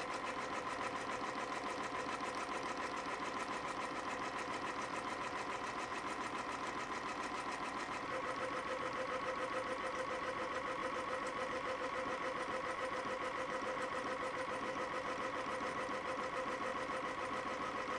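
CNC spring coiling machine running at speed, coiling 0.2 mm wire into compression springs at about 400 a minute: a steady, fast-cycling mechanical running sound with a constant hum. About eight seconds in, the hum gets stronger and a little louder.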